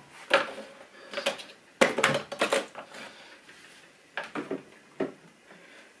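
Clatter and knocks of jars, bottles and containers being set down on refrigerator shelves. The knocks come one at a time, with a quick cluster about two seconds in and a few more near the end.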